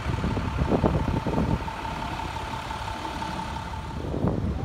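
Low rumble of vehicle engines with a single steady high tone held for about three and a half seconds.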